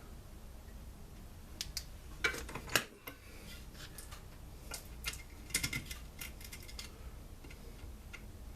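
Scattered metallic clicks and clinks of hand tools and small engine parts being handled, in small clusters a couple of seconds apart, while a two-stroke backpack blower is taken apart.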